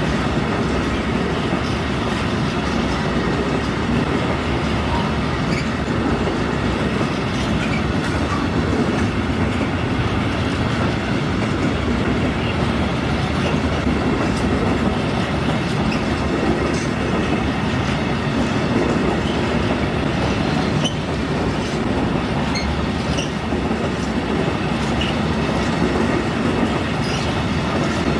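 Empty freight wagons with upright stanchions, timber-carrying flat wagons, rolling past on the rails: a steady rumble of wheels on track with clickety-clack and occasional brief high squeaks.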